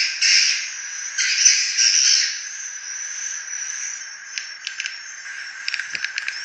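Swiftlet lure-call recording for attracting and roosting swiftlets: rough, rasping swiftlet chirps for the first couple of seconds, then a quieter stretch with rapid clicking near the end.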